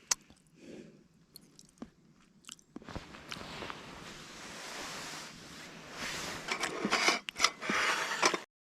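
Scattered clicks, then a steady hiss, then a run of louder crunching and rustling noises that cut off abruptly near the end.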